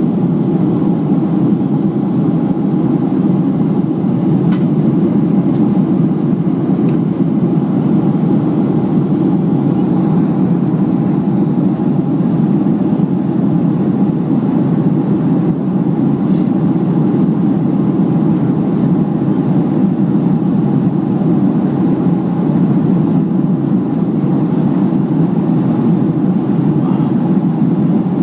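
Steady in-flight drone of a Boeing 737 airliner's jet engines and airflow, heard inside the passenger cabin: an even low rumble with a faint hum above it.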